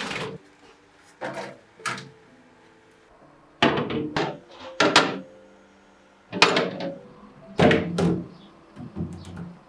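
A run of about eight short knocks and thumps of kitchen things being handled and set down, with quiet gaps between them.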